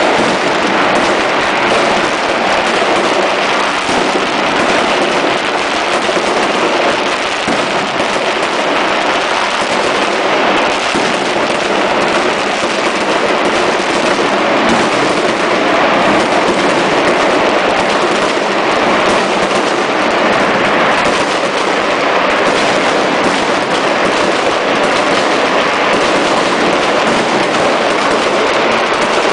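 Many fireworks exploding at once: a loud, dense, unbroken crackle of countless overlapping bangs.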